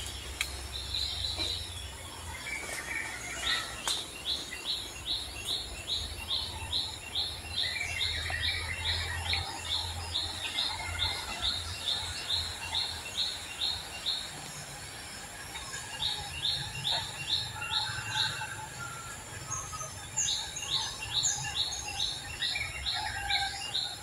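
A bird repeating a short, high chirp about three times a second in long runs, pausing twice and starting again, with other birds calling faintly and a low rumble underneath.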